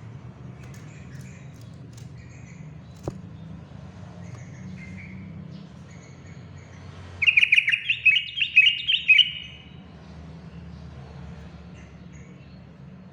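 Yellow-vented bulbul (trucukan) singing: one loud, two-second burst of quick, choppy notes a little past halfway, with faint short chirps before and after it.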